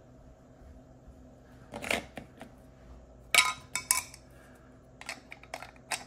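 Sharp plastic clicks and knocks of a battery being handled and pressed into the battery bay of a Syrp Genie II Linear motion-control unit. There are a few separate clicks, and the loudest cluster comes about three and a half seconds in.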